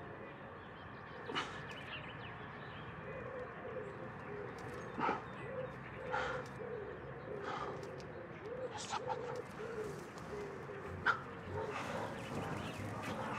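Quiet outdoor ambience: a dog barking now and then, with pigeons cooing in short, repeated low calls through the middle stretch.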